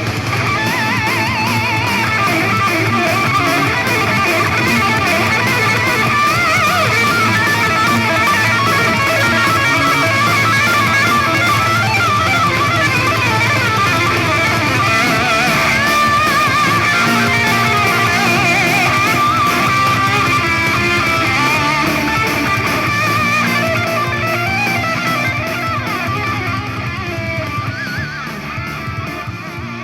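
Hard rock song with electric guitars played loud through a JBL Flip 6 portable Bluetooth speaker, its EQ set with the bass raised and the treble cut. The volume is turned down over the last few seconds.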